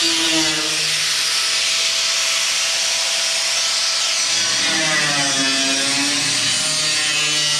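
Small electric angle grinder grinding the steel roof panel of a car body: a steady high whine over harsh grinding noise. The motor's pitch sags and recovers about halfway through as the disc is pressed into the metal.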